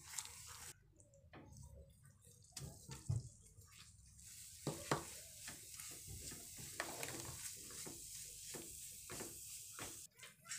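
A silicone spatula stirs and scrapes across a granite-coated nonstick frying pan, through hot syrup and then through grated coconut mixed into it. A soft sizzling hiss runs under the strokes over the second half, with a couple of sharp clicks about halfway.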